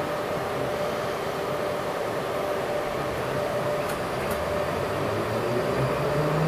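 Metrowagonmash 81-775 "Moscow-2024" metro train standing with its doors closed, its onboard equipment giving a steady hum with a couple of held tones. Near the end a low whine starts to rise as the train begins to pull away.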